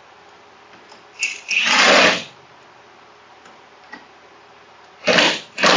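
Cordless impact wrench hammering on a 3G alternator's pulley nut in short bursts: one of about a second about a second in, and another starting near the end.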